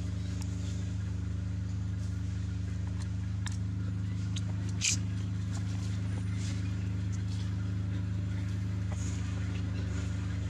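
A steady low motor hum running without change, with a few faint ticks and one sharp click about five seconds in.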